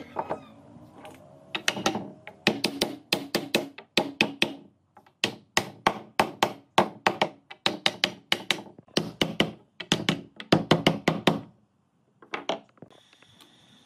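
Hammering on wood: a long series of sharp knocks, about two to three a second, in runs with brief pauses, then a short pause and two more blows near the end.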